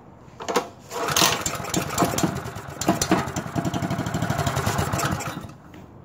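Honda GX270 single-cylinder engine pull-started on a quick shot of spray into the carburetor. It catches about a second in, runs for about four seconds, then dies. Starting and then dying like this shows that the engine will run but is not getting the fuel it needs, which points to a gummed-up carburetor.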